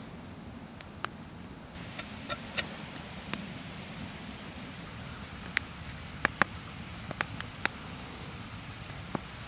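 Wood campfire crackling: irregular sharp pops, thickest around the middle, over a steady low hiss.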